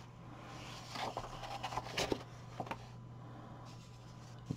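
Paper pages of a softcover coloring book being turned by hand: a faint rustle with a few soft crinkles, about one and two seconds in.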